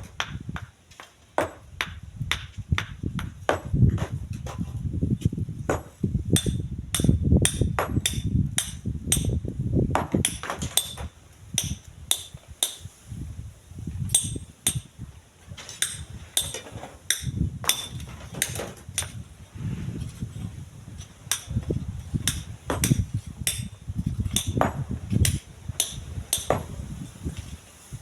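Strong gusting wind buffeting the microphone in surges, with many sharp, irregular knocks like hard objects striking one another.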